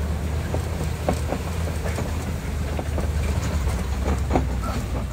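Open-sided safari ride truck driving over a rough track: a steady low rumble with scattered rattles and knocks.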